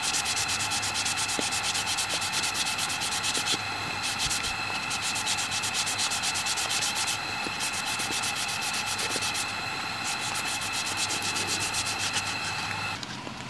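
Sandpaper rubbed back and forth over a hand-carved wooden spoon in quick, even strokes, several a second, smoothing the wood before it is oiled. The strokes pause briefly twice and stop just before the end.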